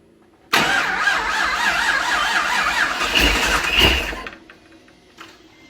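The Procharged LS2 V8 of a 2006 Pontiac GTO starting and running loudly. It cuts in suddenly about half a second in and fades out about four seconds in.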